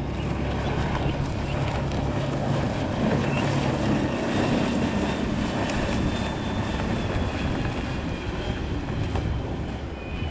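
Strela hydrofoil motorboat running at speed up on its foils: a steady engine hum under the hiss of water spray, swelling as it passes close a few seconds in and easing off near the end.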